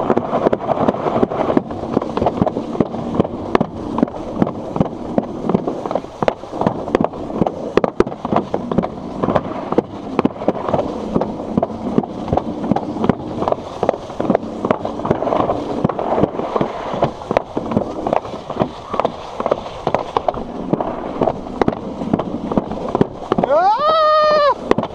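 Alpine slide sled running fast down its trough: the wheels rumble steadily, with dense, irregular rattling clicks. A brief shout rises and falls near the end.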